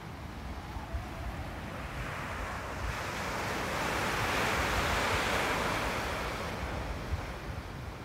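Ocean surf washing onto a sandy beach. One wave swells in from about two and a half seconds, peaks near the middle and dies away, over a steady low rumble of wind on the microphone.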